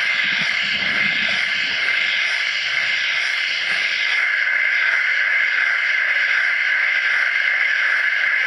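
Steady hiss of moving water heard underwater, with a faint low rumble about a second in.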